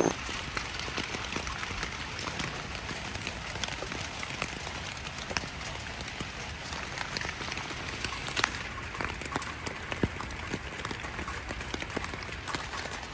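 Rain pattering on a surface: a steady hiss full of irregular drop ticks, with a few louder drops now and then.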